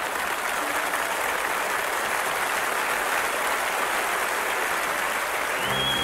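Concert audience applauding steadily. Near the end, music starts up under the applause with a high note that slides up and holds.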